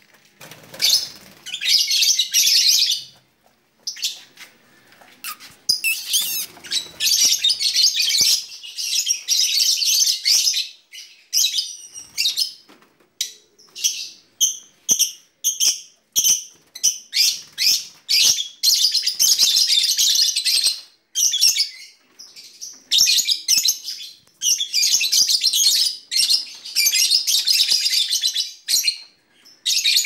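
A flock of lovebirds in a colony aviary chattering and chirping shrilly in repeated bouts of a second or two, with short pauses between them. Around the middle, the chatter gives way to a run of short, evenly spaced chirps before the bouts resume.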